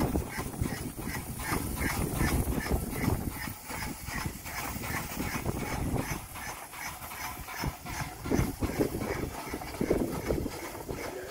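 Miniature 15-inch gauge steam locomotive River Mite hauling its train out of the station, its exhaust chuffing in an even beat at about three a second over a low rumble.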